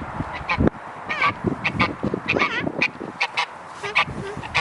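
Farm waterfowl calling: a busy run of short, honking calls, many in quick succession.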